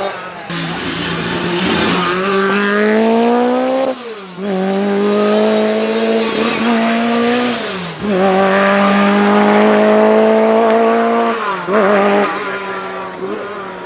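Lancia Rally 037's supercharged four-cylinder engine accelerating hard through the gears. The pitch climbs steadily in each gear and drops sharply at upshifts about four and eight seconds in, then climbs once more before the revs fall away with a few quick blips near the end.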